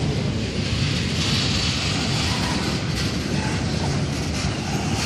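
Norfolk Southern double-stack intermodal freight train rolling past: the steady rumble and rolling noise of steel wheels on the rail, without a break.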